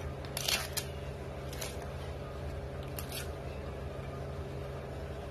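Dry bay leaves being torn and broken by hand, giving three short crisp crackles over a steady low hum.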